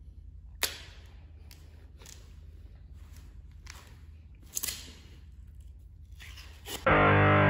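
A handful of small sharp clicks and scrapes against quiet room tone, the loudest about halfway through. Near the end, loud distorted electric guitar music cuts in abruptly.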